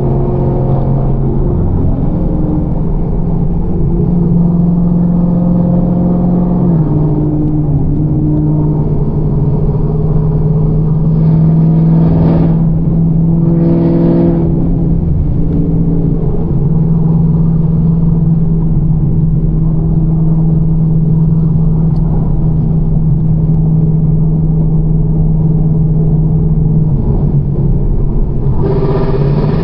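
Camaro ZL1's supercharged V8 running under steady load while driving, a constant engine drone that drops slightly in pitch about seven seconds in. Two short rushes of noise come around the middle.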